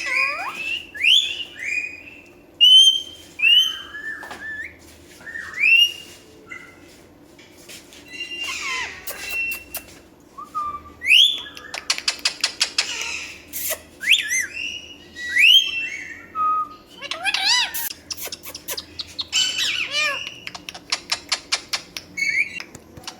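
Pet parrot calling: a string of short, rising whistles and chirps, mixed with runs of rapid clicking notes in the second half.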